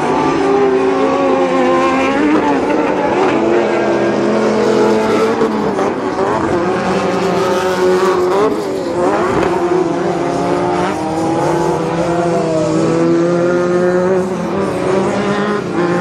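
Several Pro Lite short-course off-road race trucks racing on a dirt track, their engines revving up and down and overlapping as they accelerate and back off through the turns and jumps.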